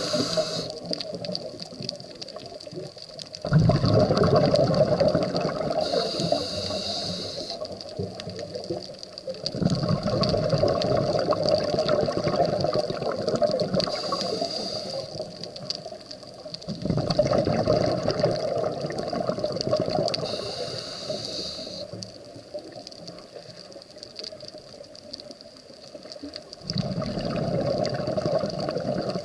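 Scuba diver breathing through a regulator underwater: short hissing inhalations alternate with longer gurgling rushes of exhaled bubbles, about four breaths in all.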